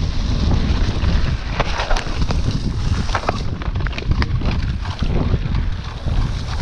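Wind buffeting the microphone over the rumble of a mountain bike's tyres on a rough grassy track, with a run of sharp rattles and clicks from the bike over bumps through the middle.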